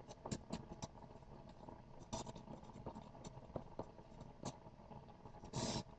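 Marker writing on paper: faint, irregular scratchy strokes and small ticks, with a short burst of noise near the end.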